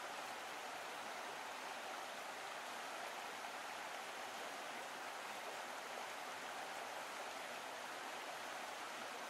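Stream water running over gravel and rocks, a steady, even rush with no breaks.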